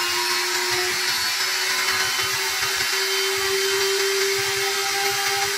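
800 W trim router on a desktop CNC router running at full speed as its V-bit engraves an MDF board: a steady high whine over a constant rushing hiss.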